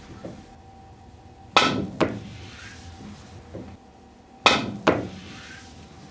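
Two pool shots about three seconds apart. Each is a sharp click of an experimental leather-and-hard-rubber composite cue tip, at short height, striking the cue ball, followed less than half a second later by the ball knocking into the cushion. A soft rolling hiss and a fainter knock follow the first shot as the ball comes back off the cushions.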